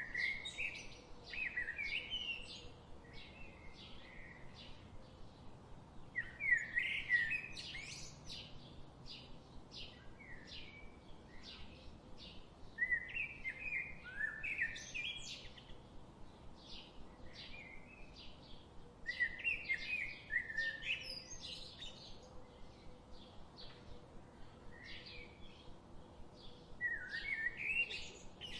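Songbirds singing: one bird gives a short warbled song phrase about every six seconds, over a steady run of short, high chirps repeated a few times a second from another bird.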